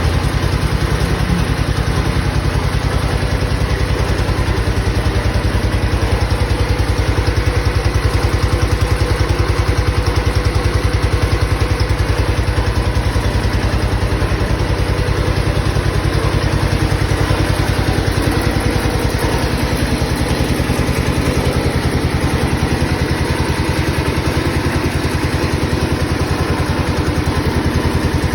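Case 210 garden tractor's engine running steadily at a constant speed, with even firing pulses and a slight change in its low tone about two thirds of the way through.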